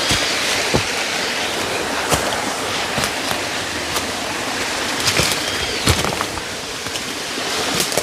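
Steady rushing of a waterfall, with a few sharp clicks scattered through it.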